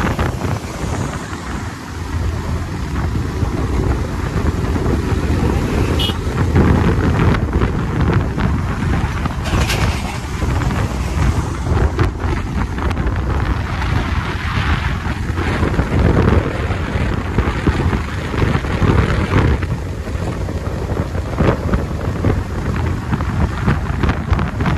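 Wind buffeting the microphone over the running engine and tyre noise of a Bajaj Pulsar 220 motorcycle at highway speed. The noise is steady and gusty.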